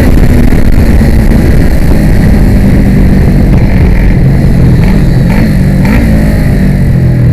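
Kawasaki ER-6 racing motorcycle's parallel-twin engine heard onboard at racing speed, loud and under wind noise. The engine note wavers up and down a few times around the middle, then settles to a lower, steady pitch near the end.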